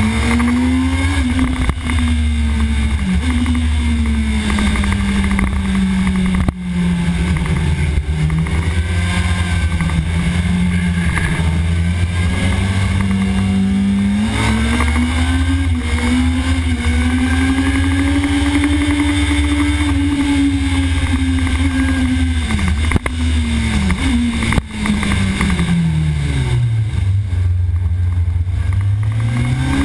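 Sport motorcycle engine at racing revs, heard from the onboard camera under a steady heavy rumble of wind on the microphone. Its pitch rises and falls with throttle and gear changes, with brief dips at shifts. Near the end it drops low as the bike brakes hard into a slow corner, then climbs again as it accelerates out.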